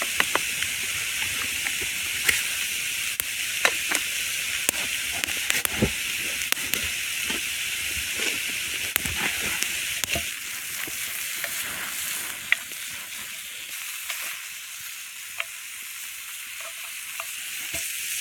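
Food sizzling over a wood campfire: a steady hiss with scattered sharp crackles and pops. The hiss eases somewhat about ten seconds in.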